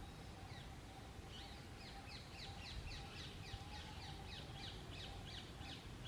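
Rose-ringed parakeet calling in a rapid series of short, high, downward-sweeping notes, about three or four a second, starting about a second in. Faint.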